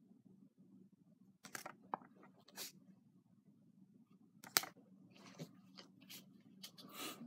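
Pokémon trading cards being handled and swapped by hand: a scattered series of short rustles, slides and taps of card stock, the sharpest click about four and a half seconds in, over a faint low hum.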